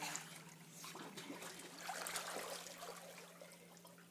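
Pool water splashing and lapping as a child swims, louder about two seconds in and dying down near the end, over a steady low hum.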